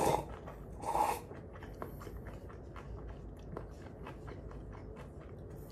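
A person slurping instant cup noodles, two short slurps in the first second or so, then quiet chewing with small wet mouth clicks.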